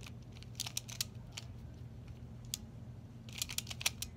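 Pyraminx puzzle being turned by hand: quick plastic clicks as its layers and tips snap round. They come in small clusters, with a dense run of clicks near the end.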